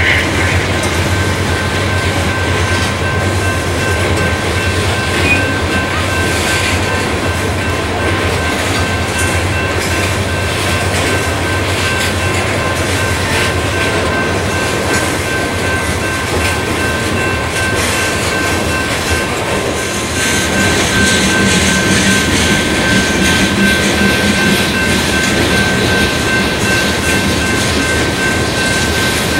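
Freight train cars rolling past, a steady clatter and rumble of steel wheels on rail with a thin, steady high whine over it. It grows a little louder about two-thirds of the way through, with a low hum joining in.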